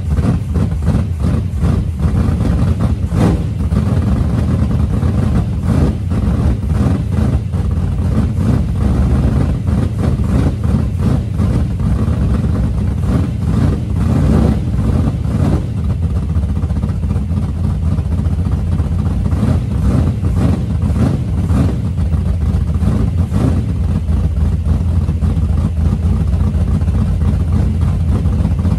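A Chrysler Imperial drag car's V8 engine running at idle, with brief rises in engine speed about three seconds in and again around the middle.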